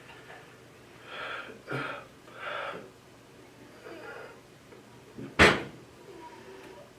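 Three short breathy sounds, then a single sharp knock about five and a half seconds in, the loudest sound.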